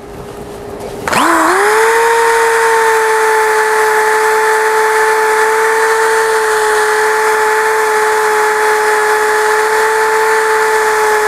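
A corded 110-volt electric drill with a sticky-pad sanding disc, sanding stained end grain out of old wood. It starts about a second in. Its whine dips briefly, then holds one steady pitch over the hiss of the abrasive on the wood.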